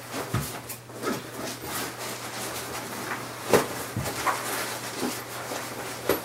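Folded softbox being pushed into its fabric transport bag: rustling fabric with scattered soft knocks, the sharpest about three and a half seconds in.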